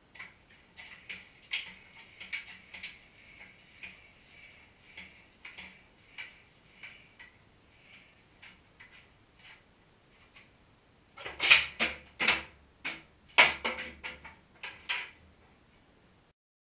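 A floor pump worked by hand at about two strokes a second, each stroke a soft hiss of air, pressurising an empty plastic-bottle water rocket. About eleven seconds in come a few seconds of much louder sharp knocks and bangs.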